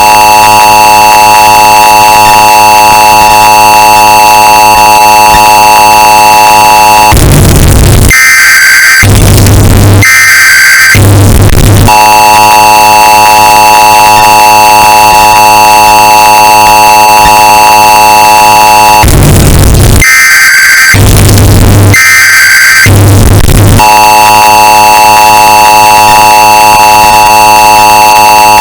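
Emergency Alert System alarm, bass-boosted and clipped to a harsh, distorted full-level blare. The two-tone attention signal sounds in steady stretches of about seven seconds, broken twice by a run of short screeching digital data bursts, the SAME header tones, with a heavy low buzz under them.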